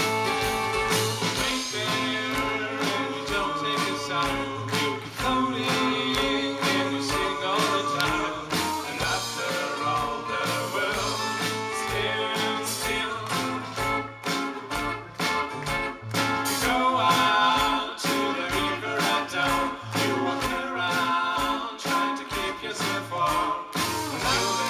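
Live band performance: guitars played with a steady rhythmic beat and singing voices over them.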